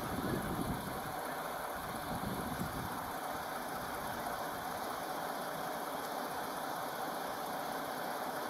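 Ford Explorer patrol SUV's engine idling steadily under an even hiss.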